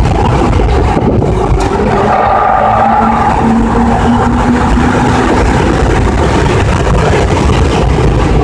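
Car engine running under steady load at track speed, heard from inside the cabin, under loud, continuous road and wind rumble.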